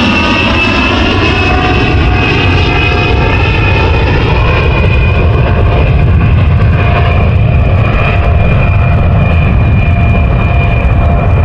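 Jet airplane engine sound: a steady loud rumble under a high whine that slowly falls in pitch, then levels off.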